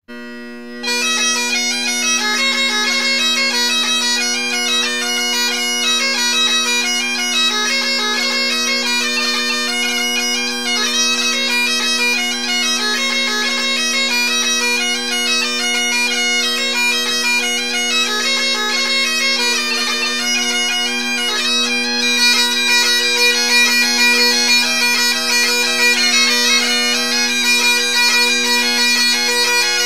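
Robertson Great Highland bagpipes playing a hornpipe: a quick chanter melody over steady drones. One set plays at first, and a second set joins partway through.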